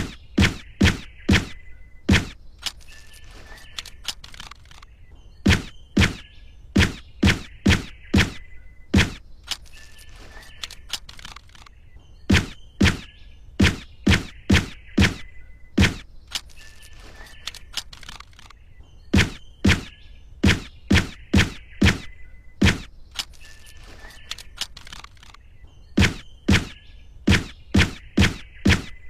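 Suppressed Nagant M1895 revolver firing in volleys of seven shots, about two shots a second, one volley for each seven-round cylinder. The volleys repeat roughly every seven seconds, with fainter clicking and rattling in the pauses between them.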